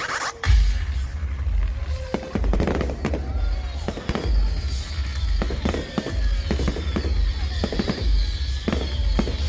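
Fireworks going off in a rapid series of sharp bangs with deep booms, a dozen or more, over music played for the show.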